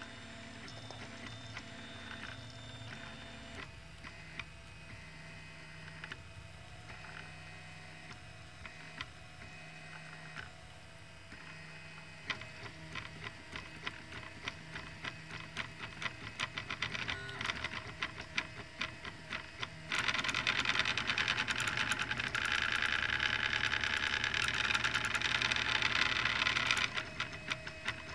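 Open-frame RepRap-style 3D printer at work: its stepper motors whine in shifting pitches as the print head and bed move, with rapid ticking. About two-thirds of the way through, a louder, busier stretch of several seconds sets in, then drops back.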